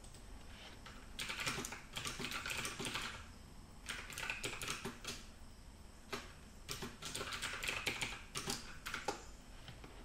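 Typing on a computer keyboard: rapid key clicks in three bursts, with short pauses between them.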